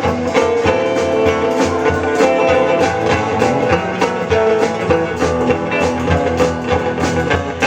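Rock and roll band playing an instrumental break, with electric guitar over a steady drum beat.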